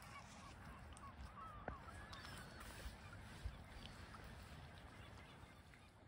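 Faint honking calls of waterfowl, a handful of short calls between about one and three seconds in, with a few soft thumps over a low steady rumble.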